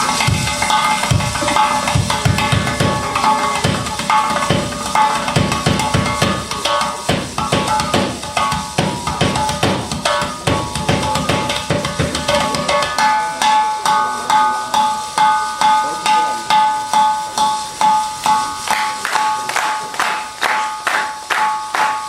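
Live percussion music. For about the first half, dense heavy drum beats play over steady ringing tones; after that, the low drums drop out and struck beats keep an even pulse of about one and a half a second, growing sharper near the end.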